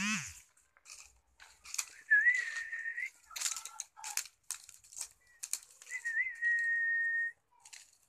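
A person whistling two long, steady notes on the same pitch, each opening with a brief wavering rise: one about two seconds in, the other near the end. Short scattered rustling crunches come in between.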